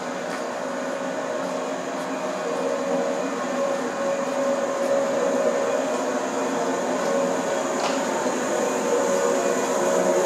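Passenger train moving slowly past close by: a steady running hum and rumble that grows a little louder toward the end, with a faint brief squeak about eight seconds in.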